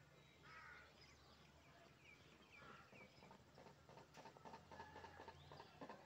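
Faint bird calls in a quiet hillside setting: one harsh call about half a second in, a few short chirps a couple of seconds later, and a run of faint clicks in the last two seconds.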